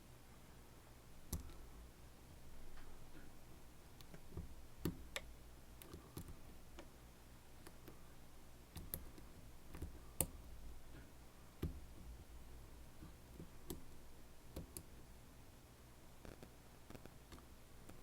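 Faint, irregular small metallic clicks and taps from a lock being worked by hand with picking tools, the sharpest click about ten seconds in.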